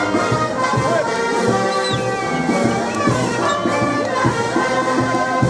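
Brass band playing festive music, horns holding chords over a regular drum beat.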